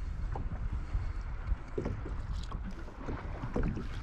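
Water lapping and small splashes against a plastic fishing kayak's hull, with scattered light knocks over a low rumble of wind on the microphone.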